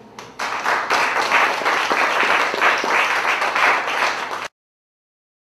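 Audience applauding at the end of a spoken-word poem, starting about half a second in and cutting off abruptly near the end.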